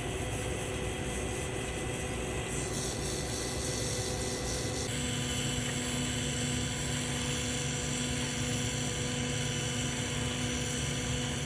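Steady hiss of a welding torch building up a Stellite hardfacing layer, with a constant hum from the welding equipment; the hiss changes in tone about three seconds in and again about five seconds in.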